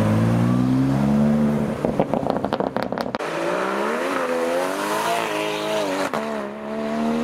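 A BMW M2's engine revving up as it pulls away, followed by a rapid string of sharp exhaust crackles and pops. Then a Porsche Cayman's engine accelerating away, its note rising and falling with the revs.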